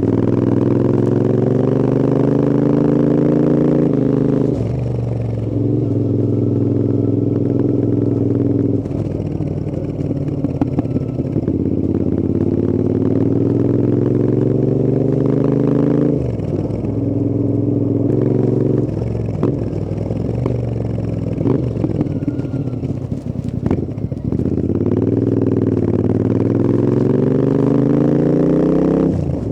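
Royal Enfield Interceptor 650's parallel-twin engine and exhausts on the move, the revs climbing repeatedly under acceleration. Each climb ends in a sudden drop in pitch as the throttle is eased or a gear is changed, with steadier cruising stretches between.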